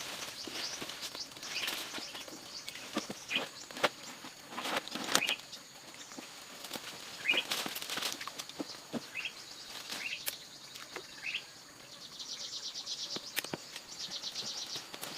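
Birds chirping in short upward calls over scattered sharp clicks and knocks. About twelve seconds in, a fast, even pulsing trill starts.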